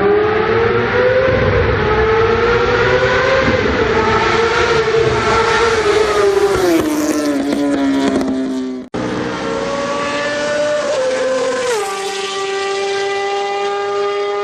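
2014 Honda CBR600RR's inline-four engine revving hard through its exhaust, the pitch climbing, holding and then falling. After an abrupt cut about nine seconds in, it holds a steady high pitch, then drops in one sudden step about three seconds later.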